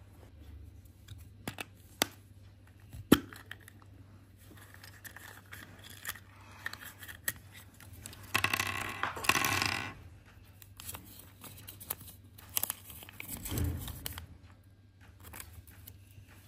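Paper Kinder Surprise instruction leaflet being unfolded with a loud crinkling rustle about eight seconds in. Sharp clicks of the yellow plastic capsule and small plastic toy pieces being handled come before and after it.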